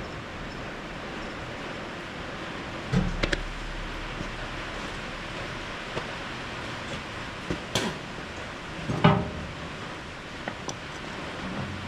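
Steady hiss of heavy rain, broken by a few sharp knocks: a quick cluster of three about three seconds in, another near eight seconds and the loudest about nine seconds in.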